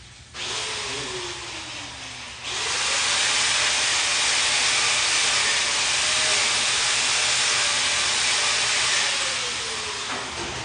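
Welding arc burning with a loud, steady hiss. It comes in softly, strikes up fully about two and a half seconds in, holds, then dies away near the end.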